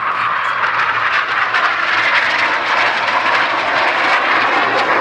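Loud, steady jet noise from an IAR 99 Soim jet trainer's Rolls-Royce Viper turbojet engine in flight.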